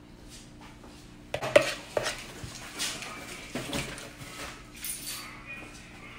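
A metal spoon clinking and scraping as it spreads whipped wax, with a few sharp clinks, the loudest about a second and a half in.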